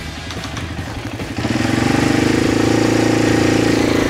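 Arctic Cat ATV engine running as it tows a grader rake through mud, growing louder about a second and a half in and then holding steady.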